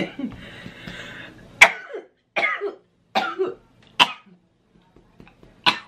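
A woman's coughing fit: about six sharp coughs roughly a second apart.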